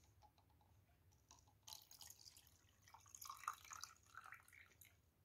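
Water poured from a mug into a jar already holding water, faint splashing and dripping starting about a second and a half in: the jar being topped up so the doll is fully covered for its colour reveal.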